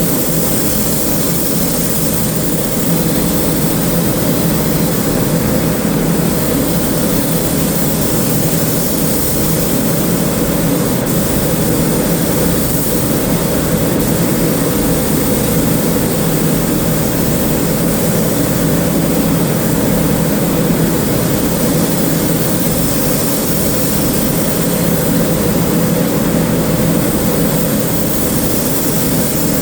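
Steady machine noise: a constant rushing roar over a low hum, unchanging throughout.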